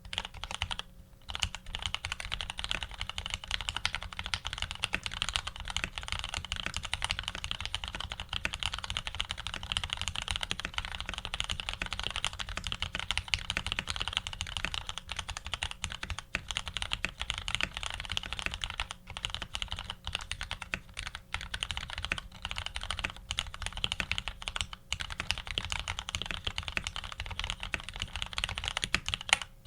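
Ar87 custom mechanical keyboard being typed on quickly and continuously, with a few brief pauses. It has lubed Retooled Black linear switches with Tx films and 67 g springs, an aluminium plate, PBT keycaps and Leopold stabilizers.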